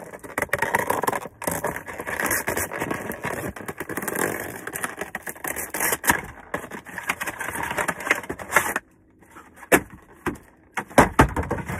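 Cardboard and plastic packaging of a Pokémon card box being handled and opened: continuous crinkling and scraping for about nine seconds, then a quieter stretch broken by a few sharp clicks and knocks.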